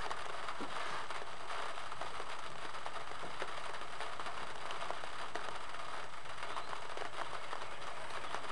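Steady rain pattering on and around a car's roof, an even hiss full of small drop ticks.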